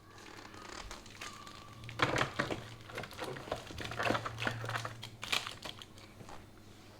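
Plastic packaging crinkling and rustling as it is handled, in a dense burst of irregular crackles lasting about three seconds. It starts about two seconds in, after softer rustling, and dies away near the end.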